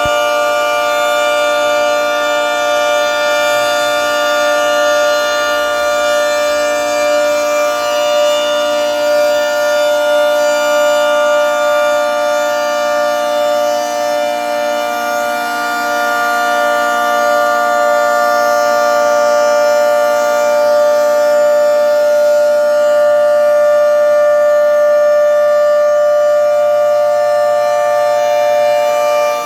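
Federal Signal 3T22 three-tone outdoor warning siren sounding its steady Alert signal: a loud, continuous chord that holds its pitch, swelling and easing slightly in loudness.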